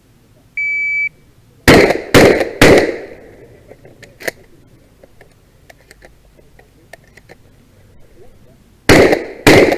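A shot timer beeps once, then a shotgun fires three shots about half a second apart. About six seconds later two more shots come, again about half a second apart, near the end.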